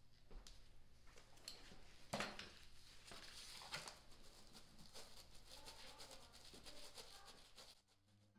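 Faint rubbing and scraping of a hand tool mixing two-part epoxy paste on a piece of cardboard, with scattered light clicks, the sharpest about two seconds in. Acoustic guitar music starts near the end.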